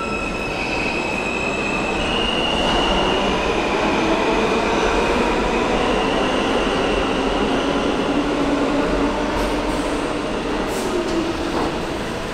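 New York City subway G train pulling into an underground station: a steady rumble of wheels on rail, overlaid with high-pitched wheel squeal and lower whining tones. The lower tones dip in pitch near the end as the train slows at the platform.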